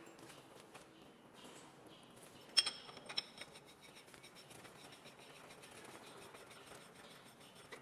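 Faint scraping and handling noises. A sharp clink about two and a half seconds in rings briefly at a few high pitches, and a lighter click follows just after.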